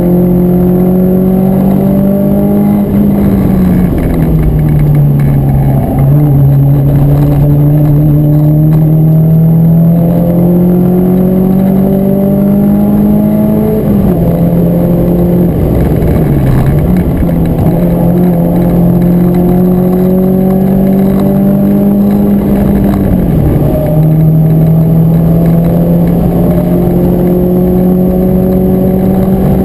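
Renault Clio 172 Cup's 2.0-litre four-cylinder engine running hard under load, heard from inside the cabin. Its note climbs slowly and dips sharply four times, as between gears or on lifting off.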